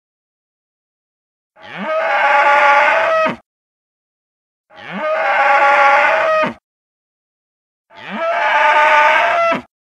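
Custom-edited Triceratops call sound effect, played three times with dead silence between. Each call lasts just under two seconds, opens with a short rising sweep and holds a lowing, slightly falling tone.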